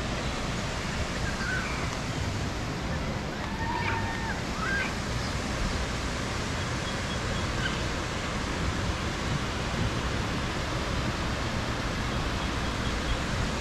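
A steady rushing noise, even and unbroken, with a few faint short high chirps or calls in the first few seconds.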